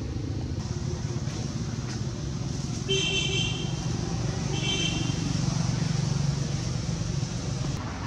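Steady low rumble of road traffic, with two short high-pitched horn toots: one about three seconds in, and another about a second and a half later.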